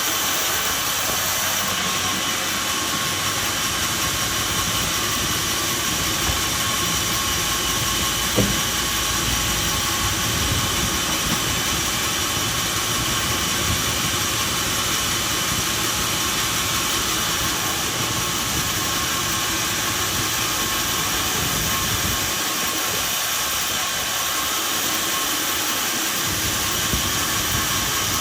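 Sawmill machinery running with a steady, hissing noise. A single sharp knock sounds about eight seconds in.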